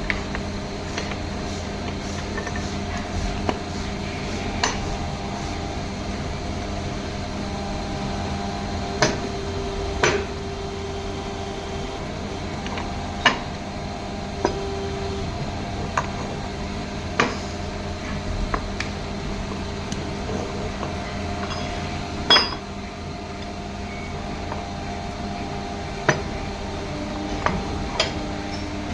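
Steel parts of a universal-joint yoke assembly being knocked and fitted together: sharp metallic knocks and clinks now and then, one louder than the rest late on. Under them runs a steady hum of workshop machinery.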